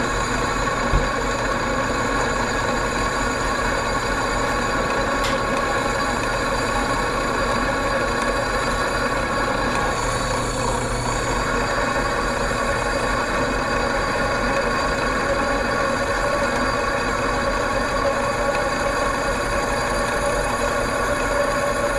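Benchtop drill press motor running steadily while a dull 4.6 mm twist drill bit grinds slowly into steel box tubing under heavy feed pressure. There is one short click about a second in.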